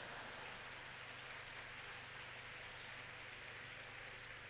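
Theatre audience applauding, a faint, even patter of many hands clapping.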